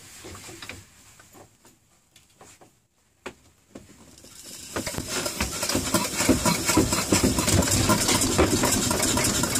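1974 Farymann P30M 1300 cc two-cylinder V-twin marine diesel being turned over with a hand crank. A few light clicks as the handle is fitted, then from about five seconds in a rapid mechanical clatter that builds up as the crank is spun. The engine does not catch on this attempt.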